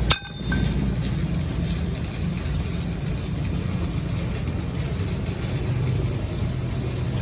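Engine running steadily with a low hum, dipping briefly right at the start.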